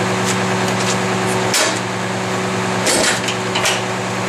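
Rear-loading garbage truck's engine and compactor drive running with a steady low hum, with two sharp clanks about a second and a half in and again about three seconds in, and a lighter knock soon after.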